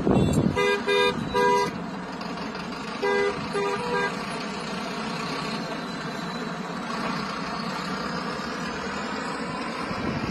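Car horn honking in two quick sets of three short toots, over the steady noise of passing road traffic.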